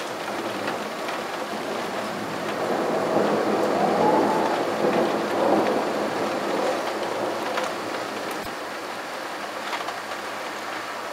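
Rain falling steadily during a thunderstorm, with a roll of thunder that swells about three seconds in, peaks in the middle and dies away a few seconds later.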